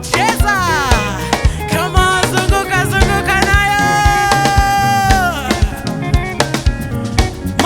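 A worship band plays gospel music: a voice sings over a drum kit and other instruments, holding one long note in the middle.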